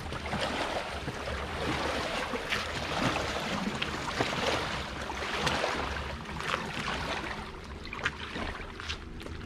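Small waves lapping and splashing irregularly at the water's edge and against an inflatable boat's hull, over a low rumble of wind on the microphone.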